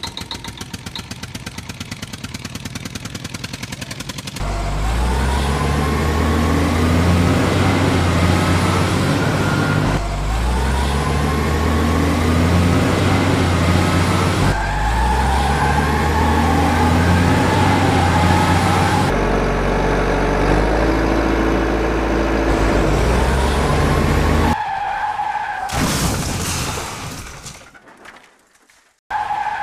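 Motor vehicle engine sound: first a fast, even pulsing idle, then from about four seconds in a loud engine accelerating, each pass opening with a rising whine and the sound starting over every five seconds or so. It drops away and cuts off briefly near the end.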